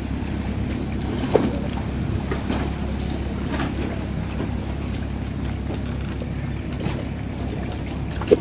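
Boat engine running steadily, with a knock about a second and a half in and another near the end.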